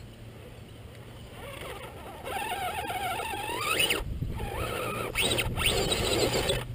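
Axial Wraith radio-controlled rock crawler's electric motor and geared drivetrain whining, the pitch rising and falling with the throttle as it climbs over rock. It starts about two seconds in and grows louder.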